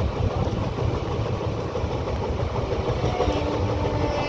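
Moving passenger train heard from an open coach door: the steady rumble of the coach running over the track. About three seconds in, a steady droning tone with several pitches joins it.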